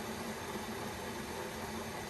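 Kettle of water at a steady boil, an even rushing hiss with no break or change.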